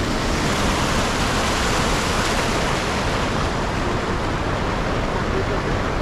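River rapids: water rushing over rocks and foaming white, a steady, even rushing noise.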